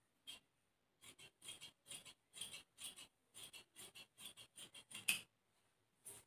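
Large tailor's shears cutting through cloth along a marked line, a quick run of snips about four or five a second, the last the loudest, stopping just after five seconds in.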